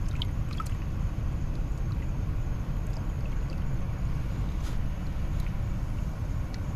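Steady low rush of moving water and wind at a rocky shoreline, with faint small splashes and drips as a large snook is held in the water to revive it.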